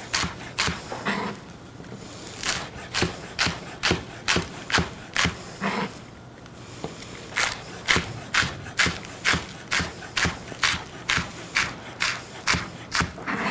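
Chef's knife slicing scallions on a cutting board: steady, even knife taps about three a second, in three runs with two short pauses, about one and a half and six seconds in.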